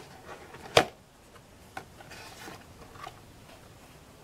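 Handling noises from a pet bird's carry box being worked open: one sharp knock about a second in, then faint rustles and small taps.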